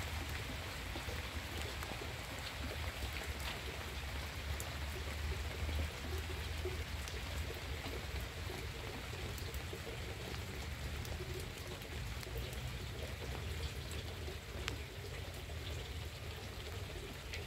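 Steady rain falling on leaves and wet ground, with scattered single drops ticking sharply. A low rumble runs underneath.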